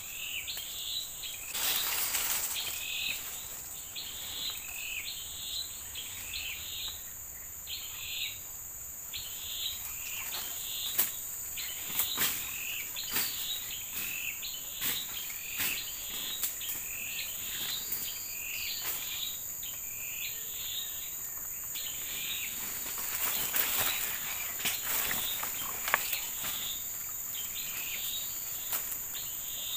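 Forest insects droning steadily at a high pitch, with short chirping calls repeating about once a second and scattered rustles and clicks.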